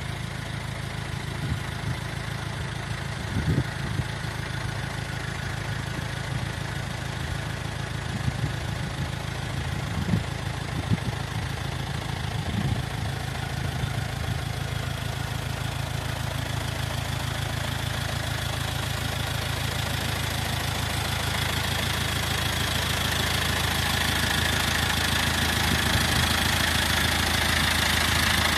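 Landini 8530L tractor's diesel engine running steadily, with a few short clunks in the first half. The engine grows louder toward the end.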